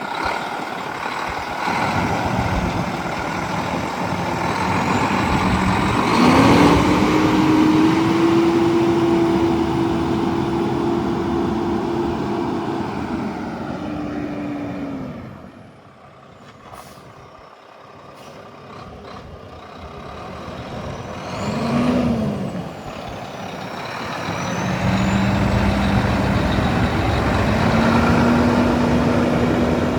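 A heavy vehicle's engine running and revving. It climbs and holds about six seconds in, falls away to a much quieter stretch near the middle, then revs briefly and settles into a steady run toward the end.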